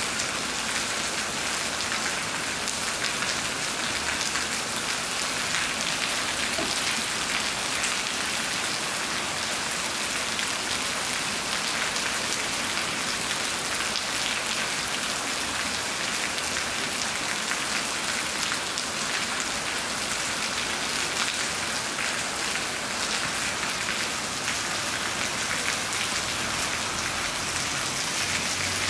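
Steady rain falling on a wet concrete street and sidewalk: an even hiss with many small drop hits, unchanging in strength.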